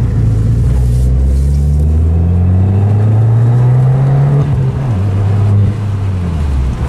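Fiat 500 Abarth's turbocharged 1.4-litre four-cylinder with a titanium exhaust, heard from inside the cabin. The revs climb steadily under acceleration, drop sharply about two thirds of the way through, then hold steadier at lower revs.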